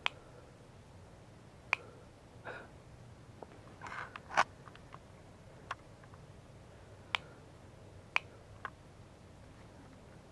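Quiet room with about a dozen sharp, faint clicks at irregular intervals and a couple of short, soft rustles.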